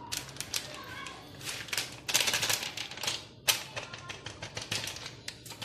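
Metal spoon stirring flan powder into milk in a ceramic bowl: rapid clinking and scraping against the bowl, busiest about two to three seconds in.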